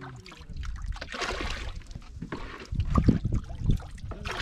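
Water sloshing and splashing around small wooden boats, with a few low thumps about three seconds in.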